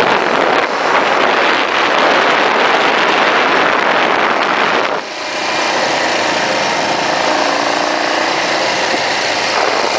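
1980 Yamaha XT500's single-cylinder four-stroke engine running under way, heard from on the bike, with loud rushing noise over it. About halfway through, the rushing drops away and the engine note comes through steadier.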